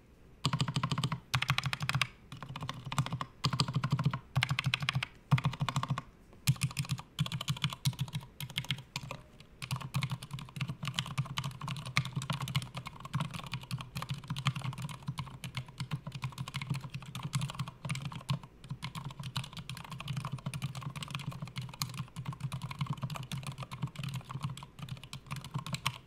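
Typing sound test on a RAMA M60-A Sequence 2 60% keyboard with an integrated aluminium plate, unlubed Aliaz 70 g silent tactile switches and GMK Phosphorous keycaps. Quick runs of keystrokes are broken by short pauses for the first nine seconds or so, then the typing goes on without a break.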